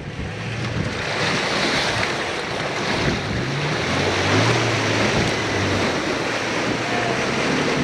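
A truck engine pulling under load as the truck drives through a water crossing, with a steady rush of splashing water over it that builds over the first few seconds.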